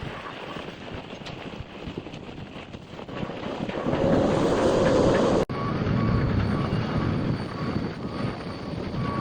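Strong wind buffeting the microphone, swelling louder about four seconds in, with a machine's warning beeper repeating faintly behind it. The sound cuts out for an instant about five and a half seconds in.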